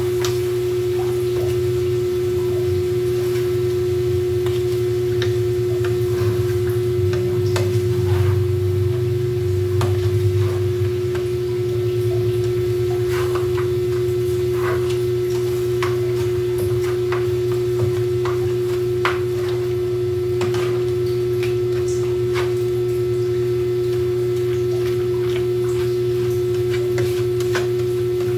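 A steady one-pitch hum, the loudest sound, runs throughout. Over it come scattered light clicks and scrapes of a wooden spatula stirring chopped jackfruit in a frying pan.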